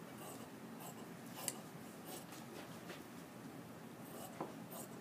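Large fabric shears cutting through cloth on a cutting table: faint scraping cuts with several short clicks of the blades, the sharpest about one and a half seconds in.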